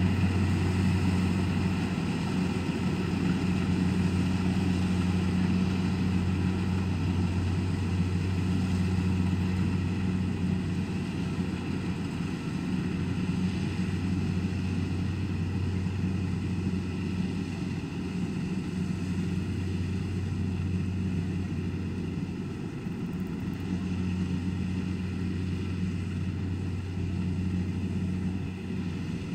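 Kubota rice combine harvester's diesel engine and threshing gear running steadily at work, a constant low drone that gets a little fainter toward the end as the machine moves away.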